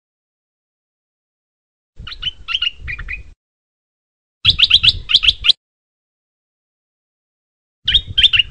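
Caged stripe-throated bulbul singing three short phrases of quick, bubbly notes, about two, four and a half, and eight seconds in, with gaps between.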